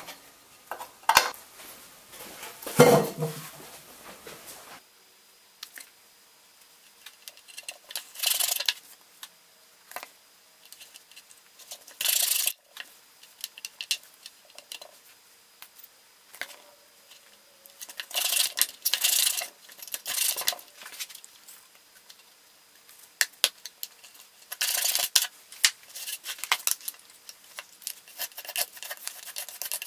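Metal clinks and a knock from a hand tool on the bolts of a steel stool frame, then separate bursts of scraping as a metal putty knife spreads and scrapes filler across the top of a log slab.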